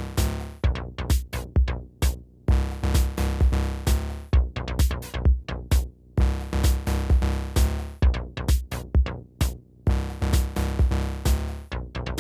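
Electronic music: a drum-machine beat under sustained synth chords and a heavy bass, with short breaks in the beat.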